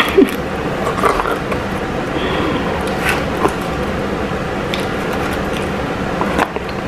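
Eating sounds: scattered short wet clicks and smacks of chewing fried chicken, over a steady background hiss.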